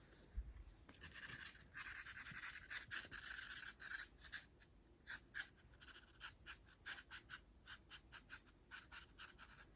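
Cat playing with a wand toy: a few seconds of scratchy rustling, then a quick run of light clicks and taps.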